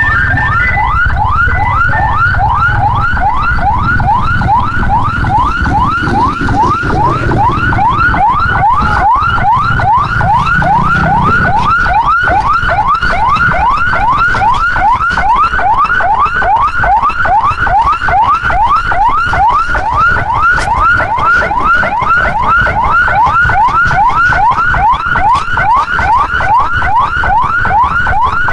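Fire engine's electronic siren sounding a fast yelp, a quick rising sweep repeated about three times a second, over a low rumble.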